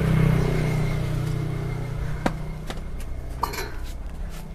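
A glazed ceramic pot set on a metal display turntable: a few light knocks, then a ringing clink about three and a half seconds in. Underneath is a low rumble that fades away.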